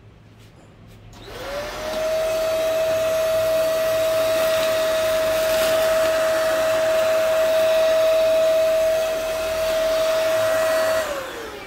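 Deerma DX900 handheld vacuum cleaner switched on, its motor whining up to speed about a second in, then running steadily with a high whine over rushing air as it sucks up sand and leaves. Near the end it is switched off and the whine falls away as the motor spins down.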